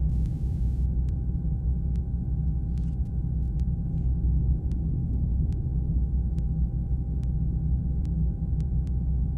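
Steady low rumble of city road traffic, with faint clicks scattered through it.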